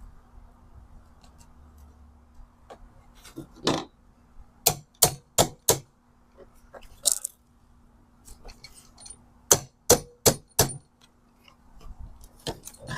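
Sharp clicks and clacks of small hard parts and screws being handled as a pressure washer's switch housing is put back together. The clicks come in two runs of four quick ones, about a third of a second apart, with single clicks in between.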